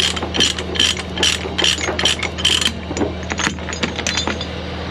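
Ratchet chain binder being cranked to tighten a load chain: a steady run of ratchet clicks, about two or three a second, that turns uneven and stops near the end. An engine idles steadily underneath.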